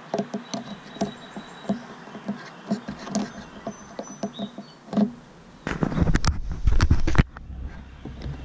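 Fingers kneading and pressing soft duct seal putty around a metal conduit fitting close to the microphone: a run of small clicks, taps and squishes. About six seconds in, a louder second or so of low rumbling and knocks comes from hands handling the microphone.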